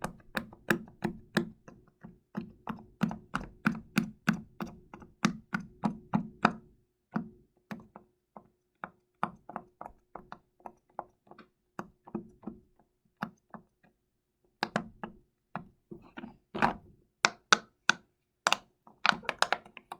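Silicone pop-it fidget toy bubbles being pressed one after another: a long run of soft pops, about three a second at first, then sparser with a short pause, then quicker again near the end.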